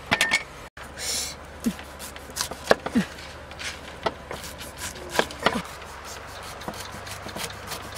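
A cleaver chopping through a pineapple onto a wooden chopping block: irregular sharp knocks, a few a second.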